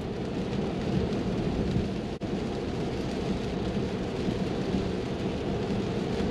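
Steady cabin noise inside a Tesla driving in the rain: tyres hissing on the wet road, with rain on the glass roof and windscreen. A split-second dropout comes about two seconds in.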